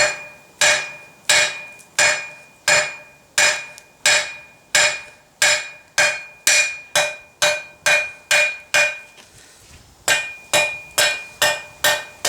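Blacksmith's hand hammer striking hot mild steel bar on an anvil with ringing metallic blows, flattening out the bar. It goes at about one and a half blows a second, pauses briefly after about nine seconds, then quickens to about three blows a second.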